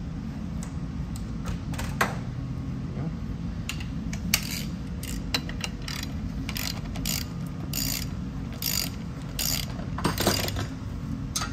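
Ratchet wrench clicking in short, uneven runs as the engine's crankshaft is turned over by hand. A steady low shop hum runs underneath.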